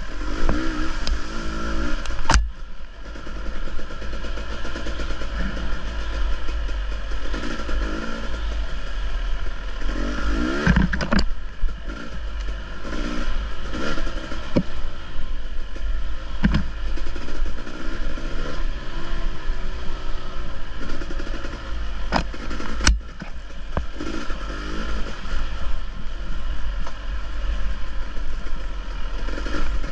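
Dirt bike engine revving up and down as it is ridden off-road, the pitch rising and falling with the throttle. Sharp knocks and clatter break in a few times.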